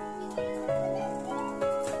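Background music: a slow melody of held notes over a steady low note.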